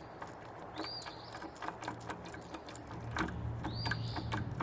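Worn control levers and linkage on a Terramite T5C backhoe being worked back and forth, clicking and knocking loosely, with two short squeaks. The slop comes from worn shafts, holes and clevises. A steady low hum runs underneath and grows louder about three seconds in.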